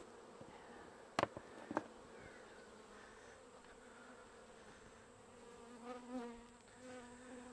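A honeybee swarm buzzing faintly, a low wavering hum that swells near the end as more bees fly. Two sharp knocks a little over a second in.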